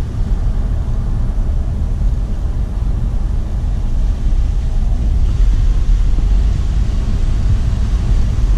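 Road noise heard from inside a moving car's cabin: a steady low rumble of engine and tyres, with a little more tyre hiss from about halfway through.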